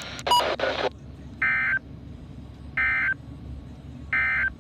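NOAA Weather Radio SAME data bursts: three identical short bursts of warbling digital tones, about 1.4 s apart, the end-of-message code that closes the Required Weekly Test.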